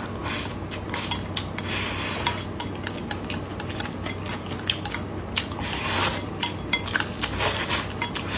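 Wooden chopsticks clicking and scraping against a ceramic rice bowl as the last rice is shoveled into the mouth, with many quick clicks and eating sounds in between.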